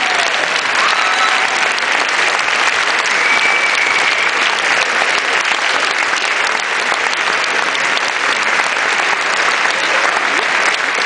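A large theatre audience applauding steadily, a warm, sustained ovation with no let-up.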